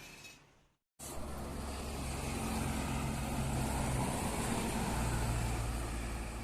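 After a brief gap of silence about a second in, a tour bus's diesel engine runs as the bus passes, a steady low rumble that grows louder toward the middle and then eases off.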